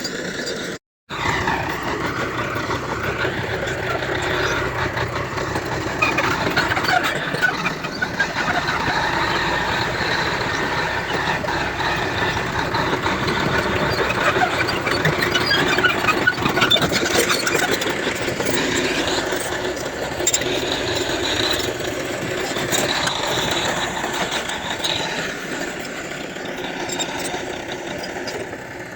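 Heavy earthmoving machinery at work, most likely a crawler bulldozer: a diesel engine running under load with scattered metallic squeaks and clanks. The sound cuts out completely for a moment about a second in.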